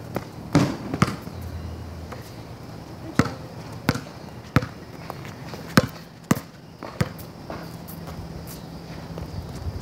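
Basketball bouncing on a concrete slab: a series of sharp, separate bounces at uneven spacing, roughly every half second to a second.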